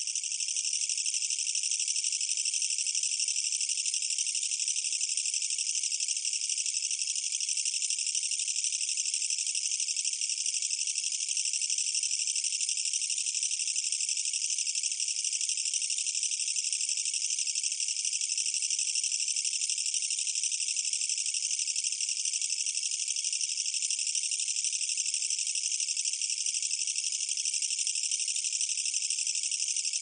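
A Mecopoda niponensis katydid (철써기) singing: one unbroken, high-pitched, dense buzzing trill that holds steady without pause.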